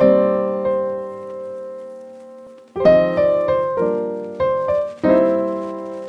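Background piano music: a chord struck at the start rings and fades for nearly three seconds, then the playing picks up again with more chords.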